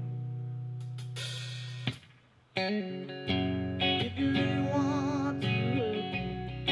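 Rock band playing live: electric guitar with drums and cymbals. A held guitar chord rings and slowly fades, stops with a sharp hit about two seconds in, and after a brief gap the band comes back in.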